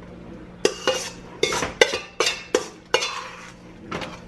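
A spoon clinking and scraping against a mixing bowl and a glass baking dish while ground-beef meatloaf mixture is scooped out. About eight sharp clinks come over some three seconds.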